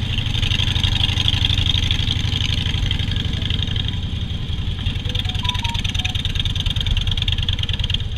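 Harley-Davidson Softail Standard's V-twin engine running steadily, a continuous low pulsing rumble.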